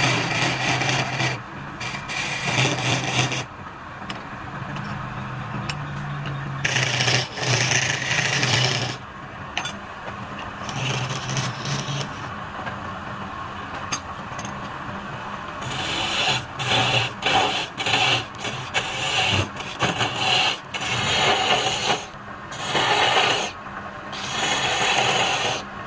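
Wood lathe running with a low steady hum while a turning tool cuts the spinning wood in repeated bursts of scraping, the bursts short and choppy in the last ten seconds.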